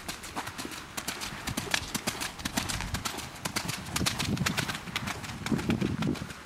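Hoofbeats of a Welsh pony moving at a brisk gait over a wet arena, a quick steady rhythm of hoof strikes. They grow louder from about four to six seconds in, as the pony passes close.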